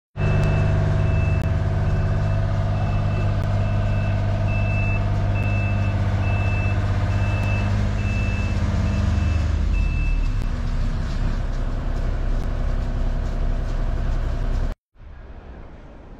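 A heavy truck's engine running, with its reversing alarm beeping at a steady, single high pitch a little under two beeps a second. The beeping stops about ten seconds in, and the engine sound cuts off abruptly near the end.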